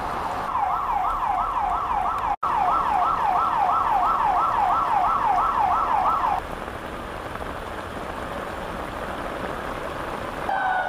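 Emergency vehicle siren wailing in fast cycles, rising and falling about three times a second, over steady heavy rain. The siren stops about six seconds in, leaving the rain, and another siren tone sliding downward starts near the end.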